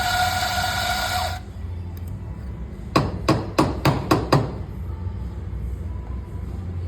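Electric coffee grinder motor whirring steadily, then cutting off about a second and a half in. Moments later come six sharp knocks in quick succession, about four a second.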